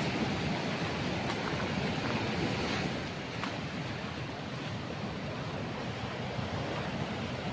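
Sea surf washing on a rocky shore: a steady, even rush, a little quieter about three seconds in.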